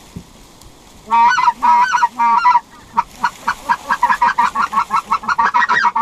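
Goose-type honking calls: three long drawn-out calls about a second in, then a rapid run of short honks about five a second.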